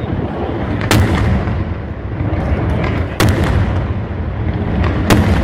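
Daytime fireworks shells bursting in the air: three loud, sharp bangs about two seconds apart, a second, three seconds and five seconds in, with a few fainter pops between, over a steady low rumble.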